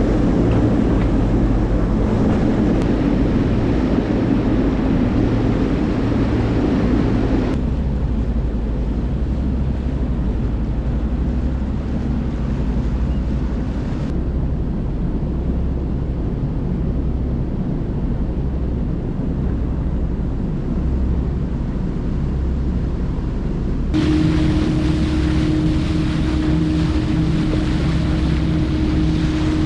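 Motor boat under way: a steady low engine drone with wind rushing over the microphone and water noise. The sound changes abruptly three times, as at cuts between shots.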